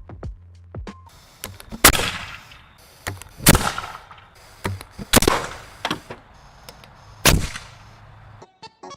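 Homemade propane-powered bottle launcher firing four times, each shot a loud bang that trails off over about half a second, with smaller pops between, over background music.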